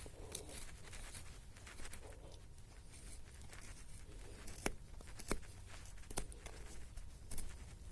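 Hands handling small dry sticks and debris: rustling and scratching, with a few sharp snaps or clicks in the second half.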